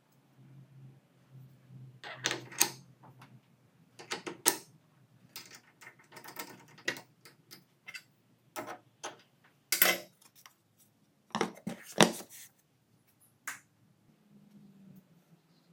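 Irregular metallic clicks and clinks of parts being handled as a 6-inch grinding wheel is fitted onto a table saw arbor and secured with a flange and nut, with a few louder clacks past the middle.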